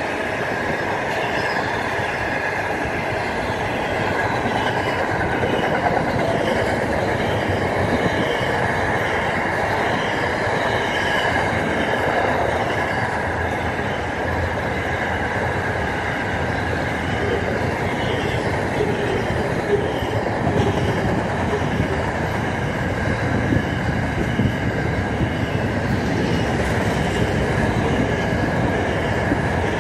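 Long intermodal freight train of double-stacked container wagons rolling steadily past, a continuous rumble of wheels on rail with a thin high squeal from the wheels and a few sharp clicks from the rail joints in the second half.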